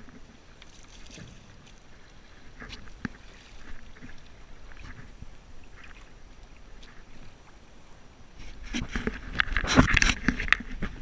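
Sea kayak being boarded in shallow water: faint knocks and scuffs as the paddler climbs in and settles into the cockpit. Near the end comes about two seconds of louder water splashing and sloshing around the kayak.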